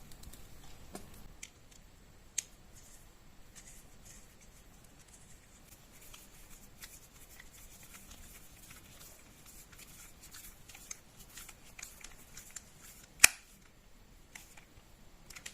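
Faint scattered clicks and rustling of a plastic electrical plug being handled and screwed back together, with a sharp click about 2 seconds in and a louder one near the end.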